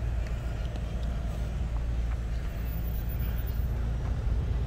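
Steady low wind rumble on the microphone of a moving rider, over the sound of slow car traffic alongside.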